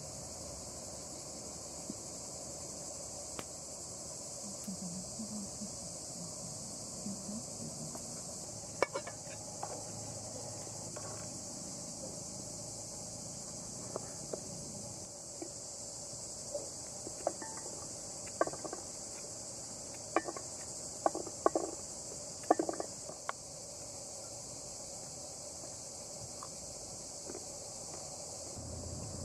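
Steady high-pitched chirring of insects. Over it, a run of sharp knocks from a knife cutting through tomatoes onto a wooden cutting board, scattered through the middle and coming quickly near the two-thirds mark.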